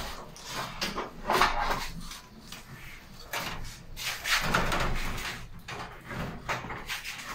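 Irregular knocks, scrapes and rattles from an aluminium-framed glass sliding door panel being carried and manoeuvred by hand.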